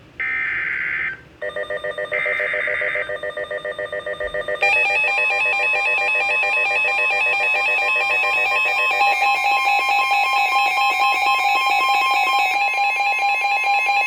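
NOAA Weather Radio Emergency Alert System alert: two short buzzing SAME data bursts of the warning's header, followed by a weather alert radio's electronic alarm beeping rapidly. From about five seconds in, the steady 1050 Hz warning alarm tone sounds underneath the beeping, signalling that a warning is about to be read.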